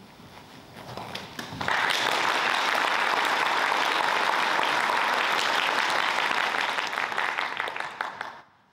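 Audience applauding: a few scattered claps at first, swelling into full, steady applause about two seconds in and stopping fairly abruptly near the end.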